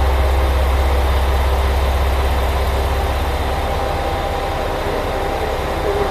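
Diesel engines of a Chizu Express HOT7000-series railcar idling at a standstill, a steady low rumble.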